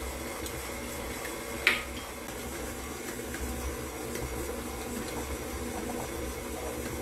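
Electric stand mixer running steadily, its paddle beating creamed butter, sugar and eggs in a metal bowl. One sharp crack a little under two seconds in, as an egg is broken for the bowl.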